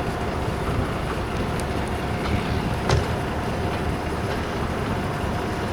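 Steady low rumble of heavy construction machinery running, with a faint steady hum and a single short clank about three seconds in.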